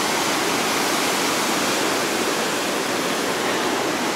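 Steady, even rush of large breaking ocean surf, with no music.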